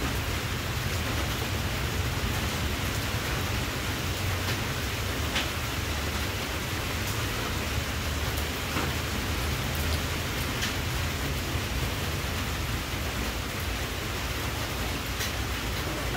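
Steady rushing noise with a low rumble underneath and a few faint ticks.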